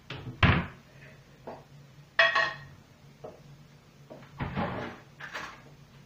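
Wooden kitchen wall-cabinet door being opened and shut, with a loud knock about half a second in, a short ringing clink of a container about two seconds in, and another knock a couple of seconds later.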